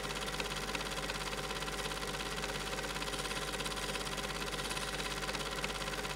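Steady mechanical whirring noise with a constant hum and hiss, unchanging throughout, typical of a Super 8 film projector running during the digitisation of silent film.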